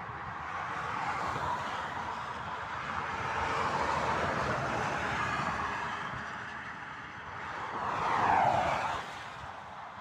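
Motorway traffic passing by: tyre and engine noise swells and fades as vehicles go past. One vehicle rushes past close by near the end, its pitch falling as it goes.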